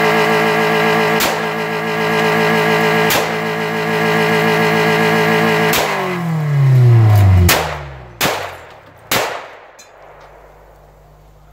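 An old Toyota four-cylinder engine runs at full revs, its pedal held down by a brick, while .458 SOCOM rifle shots crack into it, three of them a couple of seconds apart. About six seconds in the engine winds down and dies, which the shooter thinks came from a hit to the distributor. Two more shots follow about a second apart.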